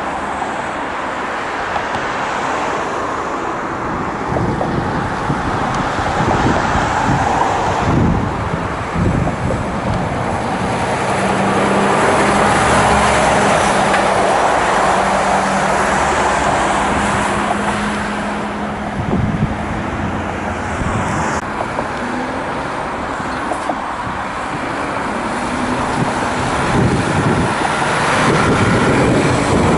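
DAF CF tractor unit hauling a curtainsider semi-trailer drives past, its diesel engine a steady drone over tyre and road noise, loudest midway. A cut about two-thirds of the way through switches to other road traffic, with another truck moving through a junction.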